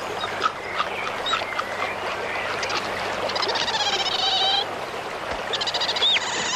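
Common ravens calling: runs of rapid rattling calls, loudest about halfway through and again near the end, with short hooked notes between them, over a steady hiss.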